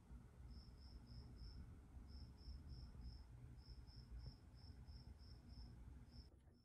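Near silence with a cricket chirping about three times a second in short runs, over a low room hum.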